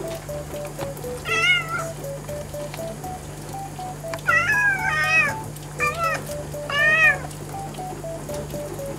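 Orange-and-white domestic cat meowing about five times, in short calls that rise and fall in pitch, most of them between about four and seven seconds in.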